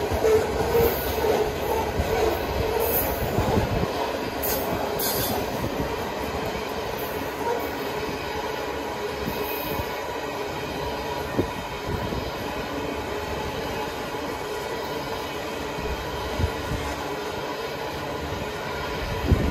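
Covered hopper cars of a freight train rolling slowly past: a steady rumble of steel wheels on the rail with a faint steady wheel squeal. A few sharp clunks from the cars come through, one near the end.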